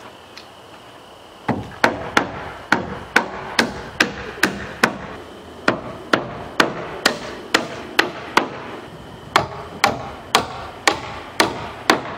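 Hammer driving nails into the wooden shed framing: sharp strikes about two a second, beginning about a second and a half in and coming in three runs with short pauses between them.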